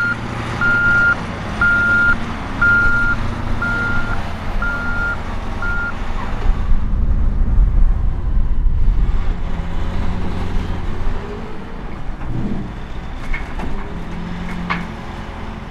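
Heavy earthmoving equipment at work: a backup alarm beeps about once a second for the first six seconds over the rumble of big diesel engines. Near the end come a few clanks as a Cat 988F wheel loader dumps a bucket of topsoil into an articulated haul truck.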